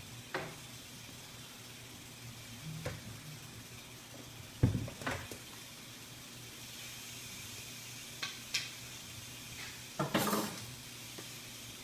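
Scattered knocks and clatters of a metal snake hook and a plastic tub being handled on a hard floor while a large snake is worked out of the tub: a few light taps, a sharper knock about four and a half seconds in, and a cluster of clatters near the end, over a steady low hum.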